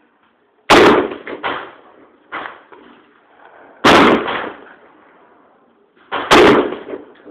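AR-15 rifle firing three single semi-automatic shots, spaced about three seconds apart, each a sharp, very loud crack with a short echoing tail. Fainter bangs sound in between.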